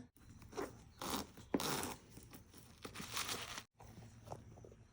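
A handbag being handled and opened, with several short rustling, scraping bursts of its zip and lining being worked.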